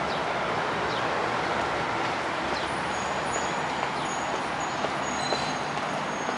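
Steady road traffic noise from the surrounding city, an even hum without distinct events. A few faint, short high-pitched squeaks come through in the middle.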